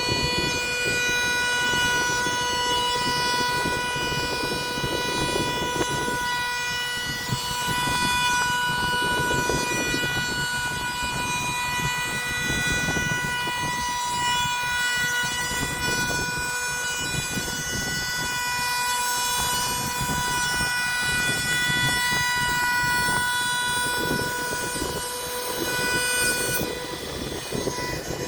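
Electric woodworking power tool, router or sander, running continuously with a steady high whine over a rough, uneven noise as it works the wood. Near the end the upper part of the whine drops away.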